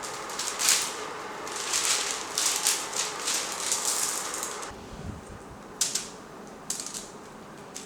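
Kitchen prep handling sounds: a few seconds of quick rattling and scraping strokes, then a dull thump about five seconds in and a few sharp clicks.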